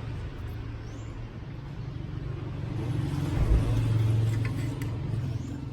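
A motor vehicle running nearby: a steady low hum that swells about three seconds in and eases off again, with a dull thump and a few light clicks.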